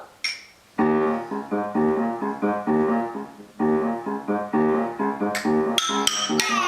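Keyboard music starts about a second in: repeated chords in a steady rhythm. From about two-thirds of the way through, sharp rattling percussion strikes play along with it.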